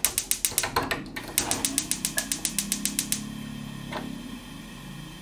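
Gas range's spark igniter clicking rapidly as a burner is lit, about six or seven clicks a second with a short break about a second in. The clicking stops about three seconds in, leaving a steady low hum, with one more click about four seconds in.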